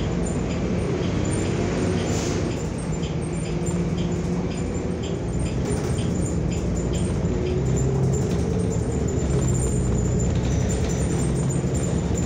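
New Flyer XN40 natural-gas transit bus under way, heard from inside: a steady engine and road hum, with a light tick repeating about twice a second.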